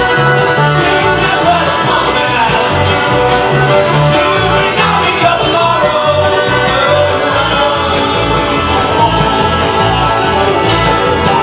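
Live band playing an alto saxophone lead over strummed acoustic guitar, with upright bass notes stepping underneath.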